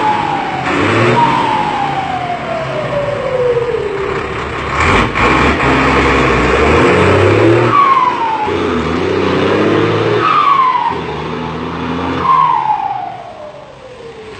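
Mercedes-Benz 1721 bus turbo-diesel revved in repeated bursts, its Garrett turbocharger fitted with a 'pente' whistle insert that 'sings': after each rev a loud whistle falls in pitch as the turbo spools down, four times. The sound fades near the end as the bus pulls away.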